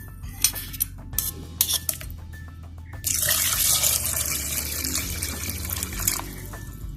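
Water pouring steadily for about three seconds, starting and stopping abruptly. A few light clinks come before it, and background music runs underneath.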